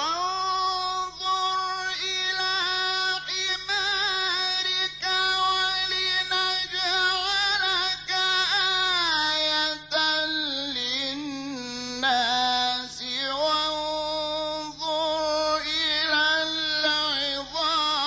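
A male Qur'an reciter's voice in mujawwad melodic recitation: long, ornamented held notes with vibrato. The phrase opens with a rising swoop, steps down in pitch about nine seconds in, and breaks briefly twice before continuing.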